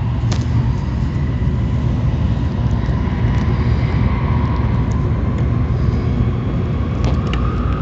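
Tokaido Shinkansen train running, a steady low rumble heard from inside the passenger car, with faint steady whines and a few light clicks.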